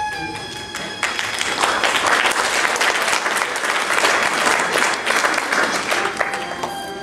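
Audience applauding in a hall, the clapping starting about a second in and dying away near the end, over background stage music.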